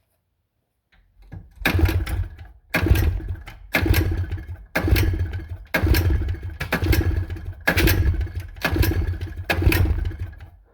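Two-stroke engine's recoil pull-starter yanked about nine times in a row, roughly once a second, the engine turning over with each pull but not catching. It has failed to start after about 50 pulls, which the owner puts down to a bad spark plug.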